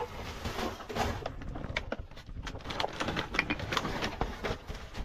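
Trash being rummaged in a dumpster: plastic bags crinkling and cardboard being shifted, with scattered clicks and knocks.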